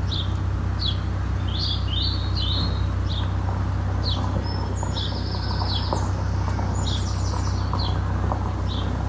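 Small songbirds chirping outside: a run of short, high chirps with a few longer buzzy notes in the middle, over a steady low rumble.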